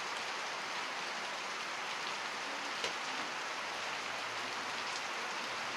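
Heavy rain pouring steadily, an even hiss of rain on surfaces, with a single sharp tap about three seconds in.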